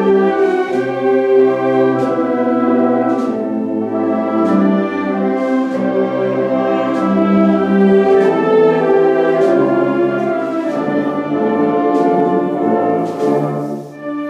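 Wind band of woodwinds, horns and low brass playing a slow Holy Week processional march in sustained chords, with a brief dip in loudness near the end.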